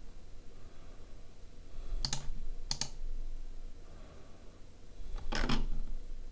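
A few sharp computer mouse clicks, one pair about two seconds in and another just under three seconds in, over a low hum, then a short, softer noise about five and a half seconds in.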